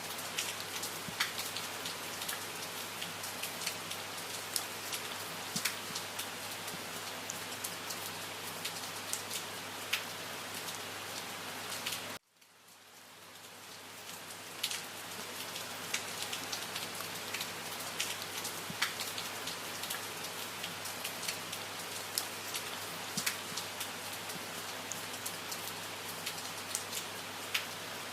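Steady rain falling, with many individual drops ticking sharply over the hiss. About twelve seconds in the sound cuts off suddenly and fades back up to full over a couple of seconds.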